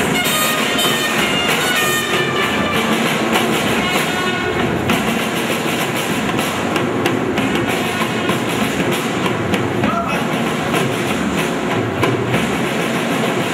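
Loud music with a fast, steady percussive beat, and a high melodic line in the first couple of seconds.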